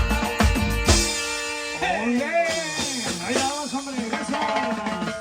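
Loud Latin dance music with a pounding drum beat. About a second in the beat drops away, and sliding, wavering pitched sounds carry the music until the beat returns near the end.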